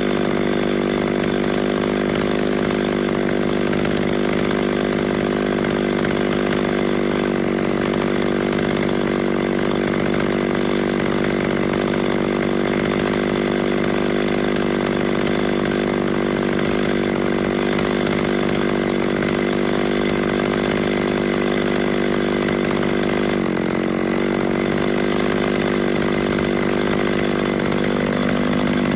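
Two-stroke McCulloch chainsaw running at a steady high pitch, held at full throttle while cutting through a thick log. The pitch dips briefly under load about 23 seconds in, then recovers.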